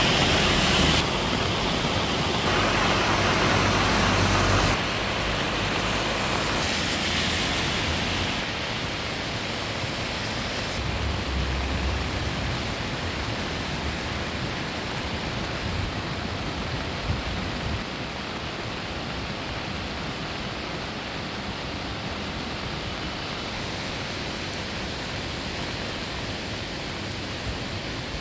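Floodwater rushing down a swollen city stream after heavy rain: a steady wash of water noise. It is loudest in the first five seconds and drops down in steps after that.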